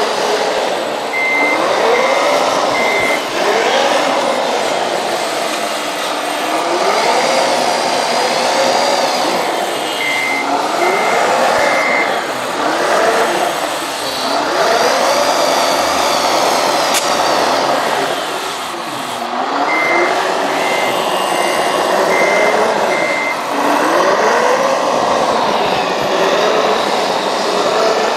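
Radio-controlled Liebherr 576 wheel loader model driving back and forth, its motor sound rising in pitch again and again as it pulls away. Three short runs of reversing beeps, three to five beeps each, sound as it backs up.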